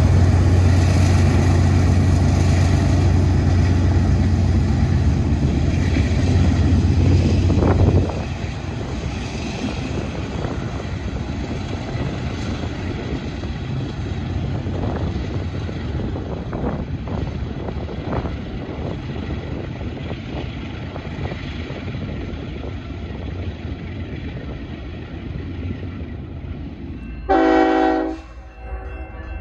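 A low, steady engine drone that cuts off abruptly about eight seconds in, then a quieter steady rumble with scattered clicks. Near the end a freight locomotive's air horn sounds once, briefly, for a grade crossing.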